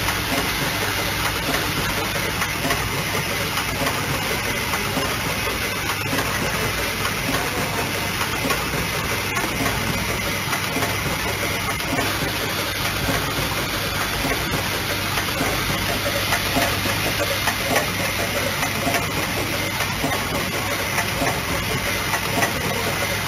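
Automatic EE core assembly, taping and testing machine running, its vibratory bowl feeders and mechanisms making a steady, dense mechanical noise with a hiss and a low hum.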